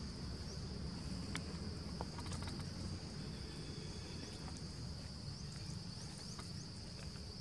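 Insects buzzing in a steady high-pitched drone over a low rumble of outdoor background noise, with a few faint clicks in the first couple of seconds.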